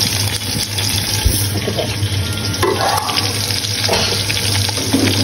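Sliced onions frying in hot oil, a steady sizzle, with a low hum underneath.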